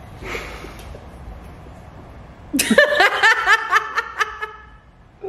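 A woman bursting into loud, high-pitched laughter about halfway through, a quick run of ha-ha pulses that trails off, after a quiet pause.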